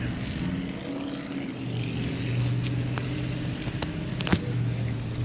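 Steady low hum of a vehicle engine running nearby, with a few sharp clicks about three to four and a half seconds in.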